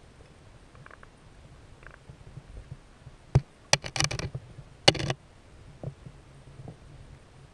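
Muffled knocks and clicks heard underwater, a sharp cluster of them from about three to five seconds in, over a low steady rumble of the river.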